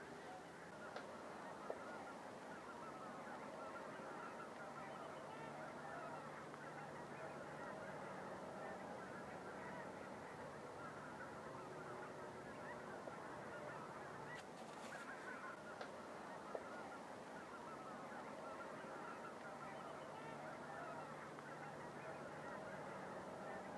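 A huge flock of snow geese calling: a steady chorus of many overlapping honks, with two short sharp clicks.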